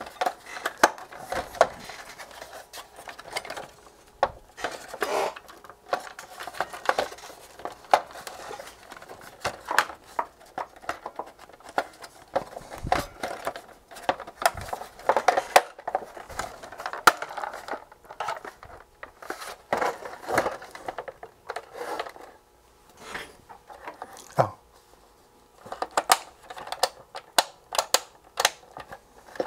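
Handling noise from the plastic case of a Sony TFM-7350W portable radio being fitted back together: many irregular clicks and knocks.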